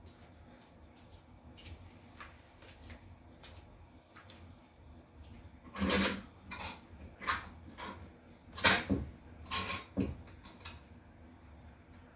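Household handling sounds: faint ticks at first, then about halfway in a quick run of short rustles and knocks, the loudest near the end of that run.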